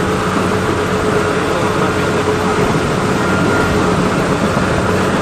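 Engine of a corn-harvest machine running steadily at constant speed.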